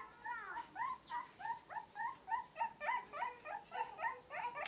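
Newborn puppy crying in a rapid run of short, rising squeaky whimpers, about three to four a second.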